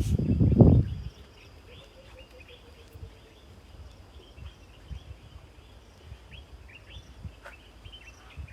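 Birds chirping and calling over a steady high insect buzz, with a short run of repeated lower notes a couple of seconds in. A loud low rumbling noise fills the first second.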